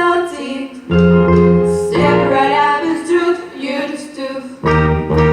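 Show-tune music from a stage musical number playing loudly, with a singing voice over the backing.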